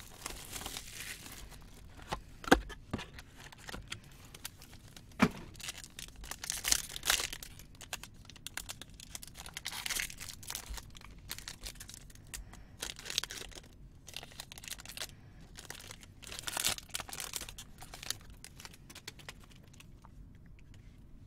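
A trading-card pack's plastic wrapper being torn open and crinkled by hand, with two sharp snaps about two and a half and five seconds in, then irregular rustling as the cards are slid out and handled.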